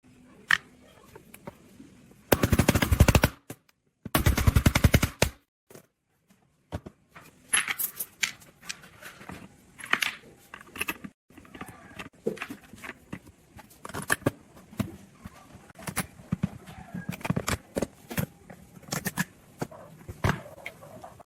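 Two bursts of rapid mechanical rattling, about a second each, from a fast-impact tool working on metal, then irregular knocks and clicks.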